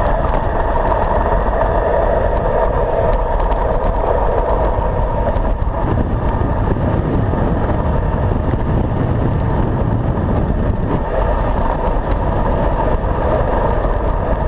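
Wind noise on a handlebar-mounted camera's microphone, together with road-bike tyres rolling on asphalt during a fast downhill ride, as a steady loud rush.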